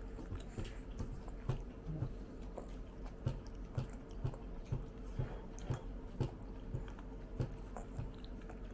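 A person chewing food close to the microphone: soft, wet mouth sounds in a steady rhythm of about two to three chews a second.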